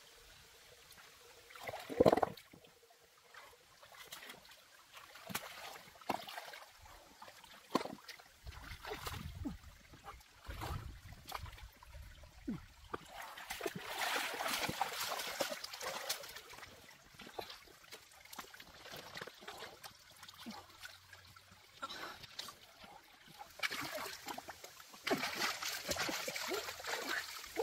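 Water splashing and trickling in bursts, with scattered knocks and one sharp knock about two seconds in.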